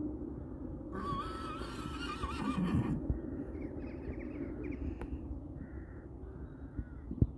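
A horse whinnying once, a wavering call of about two seconds starting about a second in, over a steady low rumble.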